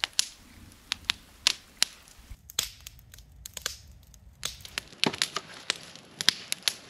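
Campfire wood crackling, with irregular sharp snaps and pops.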